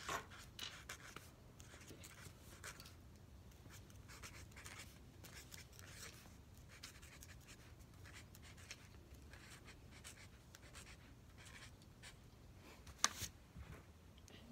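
Pen writing on paper: faint, scratchy strokes, with a sharp click near the end.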